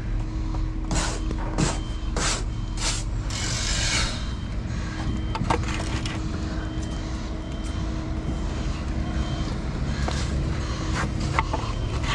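Steady engine hum of building-site machinery over a low rumble; the hum stops about ten and a half seconds in. A few short scrapes and knocks come between about one and four seconds in, and a couple of sharp clicks near the end.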